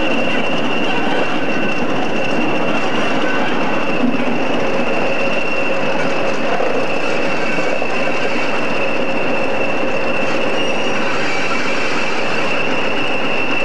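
A pair of British Rail Class 20 diesel locomotives and a rake of old LMS electric coaches passing at low speed. It is a steady rumble of engines and wheels with a constant high-pitched whine over it.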